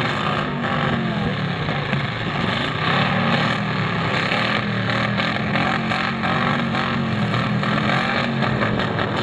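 Demolition derby cars' engines revving hard, the pitch falling and climbing again several times as the cars back up and push against each other.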